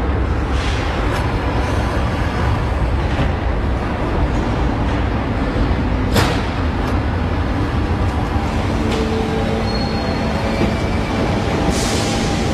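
Aircraft maintenance hangar noise: a steady low machinery rumble with a few sharp metallic clicks and clanks from work on a jet engine, the clearest about six seconds in and another near the end.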